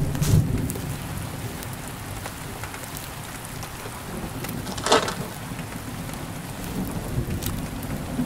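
Steady rain-like hiss over a low rumble, with one short rustling burst about five seconds in.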